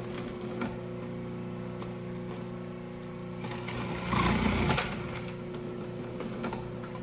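Food processor motor running with a steady hum while red cabbage is fed down the feed tube. About four seconds in, a louder, coarse grinding lasting about a second as cabbage pressed down with the pusher is shredded by the disc.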